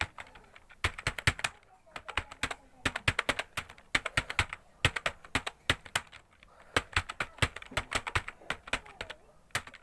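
Fast typing on a computer keyboard: quick runs of key clicks in bursts, broken by short pauses of under half a second.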